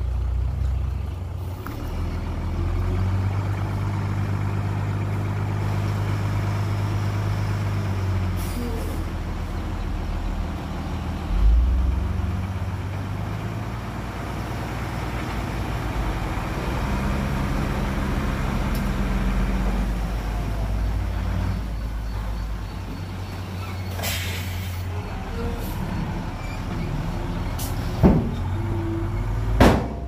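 Heavy diesel engine of earthmoving machinery working, its pitch stepping up and down as the revs change. A heavy thud comes about eleven seconds in, and sharp knocks come near the end.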